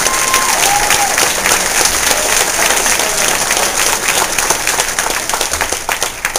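Crowd applauding: dense, sustained clapping from a seated audience, with a brief whoop about a second in, cutting off abruptly at the end.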